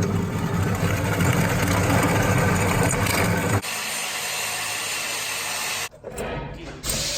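A power tool cutting the exhaust piping, running loud and buzzing, in short clips that change abruptly about three and a half seconds in and again near six seconds.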